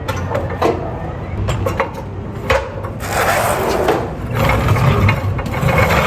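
Metal parts under a car knocking and scraping as the subframe and steering rack are worked down: a few sharp knocks early, then rasping scrapes in spells from about halfway through.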